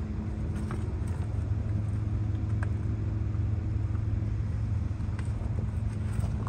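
A vehicle engine idling with a steady low hum that stops near the end, with a few faint clicks over it.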